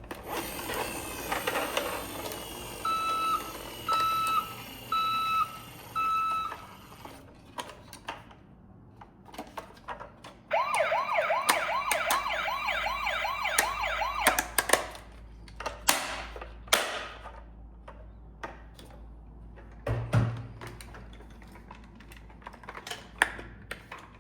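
Emergency-vehicle siren sounds: four beep tones about a second apart, then a few seconds of rapid rising-and-falling yelp siren. Clicks and clatters are heard throughout, with a low thump near the end.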